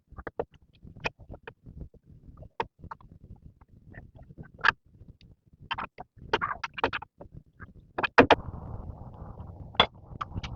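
Irregular knocks and clicks of handled or struck material. About eight seconds in, a steady low rumbling noise sets in beneath them.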